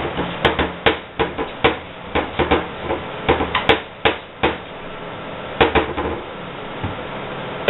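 Sharp wooden knocks and rattles from kitchen cabinet doors, coming in several quick irregular clusters.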